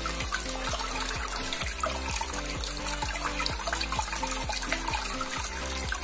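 Water trickling and splashing down a small tabletop fountain into its tray. Background music with a steady low tone and a regular beat plays over it.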